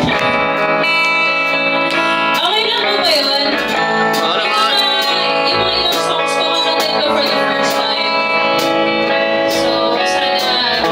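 A live band playing a slow song: electric guitar and keyboard holding sustained chords, with a woman singing into a microphone.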